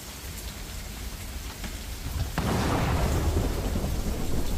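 Steady rain falling, with scattered drops tapping on nearby surfaces. About halfway through, a thunderclap breaks suddenly and rolls on as a loud rumble.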